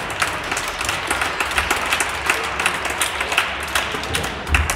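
A run of sharp, irregular clacks and taps from floorball play, with plastic ball and sticks striking, echoing in a large sports hall.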